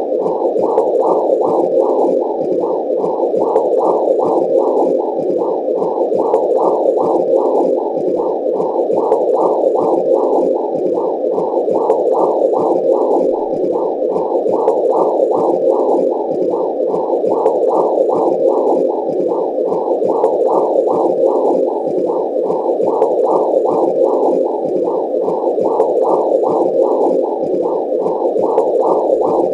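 Womb sound: a muffled whooshing noise that pulses steadily about twice a second, the rhythmic blood-flow whoosh heard inside the womb.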